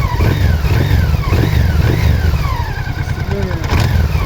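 Honda Africa Twin motorcycle engine running with an uneven low rumble and a knock (стук) in the engine.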